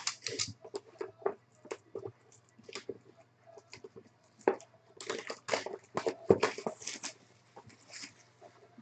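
Clear plastic shrink wrap being torn and crinkled off a sealed trading-card box by hand: irregular crackles and rustles, busiest about five to seven seconds in.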